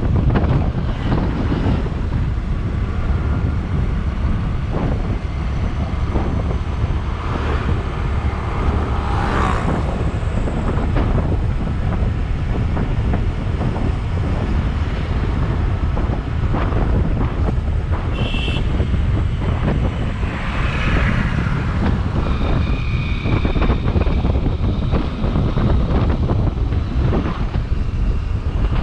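Wind rushing over the microphone of a camera on a moving motorcycle, with steady road and engine noise underneath. A couple of brief high tones come through about two-thirds of the way in.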